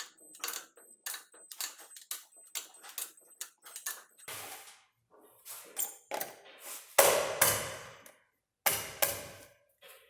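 Quick, uneven run of sharp metallic clicks from hand tools, then a few louder clanks, the loudest about seven seconds in.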